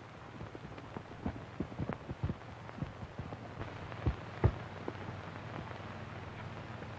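Surface noise of an old optical film soundtrack: a steady low hum and hiss with scattered crackles and pops. Two louder pops come a little after four seconds.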